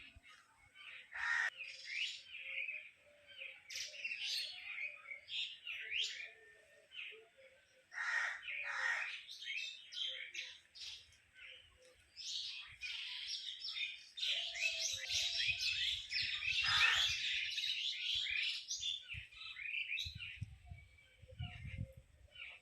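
Many small birds chirping and calling together in a dense chorus of short, overlapping chirps, with a few longer down-sweeping calls. Faint low knocks and rumbles come in during the second half.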